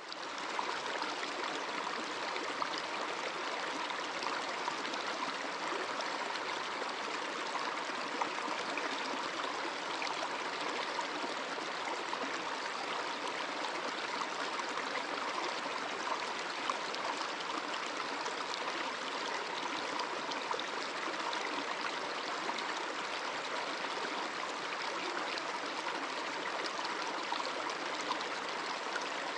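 Running water, a steady rush with no breaks, fading in at the very start.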